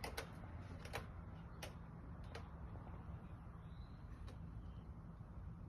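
A handful of sharp, short clicks at irregular intervals over a low, steady background rumble.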